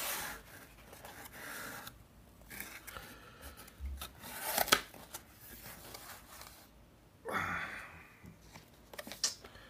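Cardboard mailer box being opened by hand: the lid and flaps are pulled open and the cardboard scrapes and rubs in irregular rustles, with a few sharp knocks, the loudest about halfway through.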